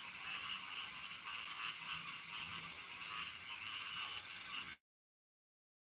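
Steady outdoor chorus of chirring insects, with a layered pulsing high-pitched texture, that cuts off suddenly near the end.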